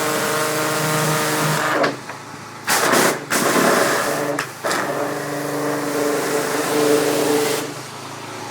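Pressure washer's engine running steadily under the hiss of its water spray. The spray breaks off briefly a couple of times.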